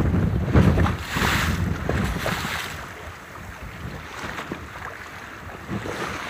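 Wind buffeting the microphone and open-sea waves washing around a wooden sailing raft. A louder wash of water comes about one to two and a half seconds in, and things settle after about three seconds.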